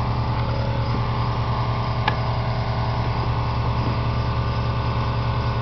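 Air compressor running with a steady hum. The riding mower being keyed gives no cranking sound, only a faint click about two seconds in.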